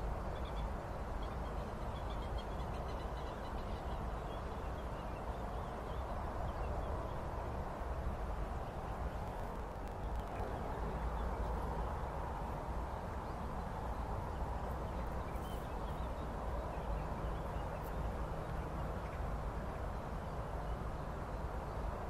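Steady low rumble of outdoor background noise, with faint, scattered high bird calls in the first few seconds and again after about fifteen seconds.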